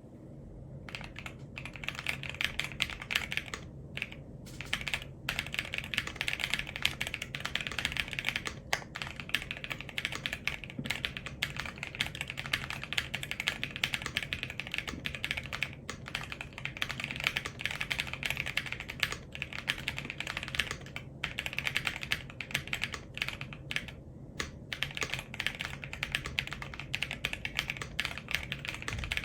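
Fast continuous typing on an Akko ACR PRO68 mechanical keyboard with NuPhy Night Breeze linear switches and PBT double-shot keycaps. The typing starts about a second in, with a few brief pauses.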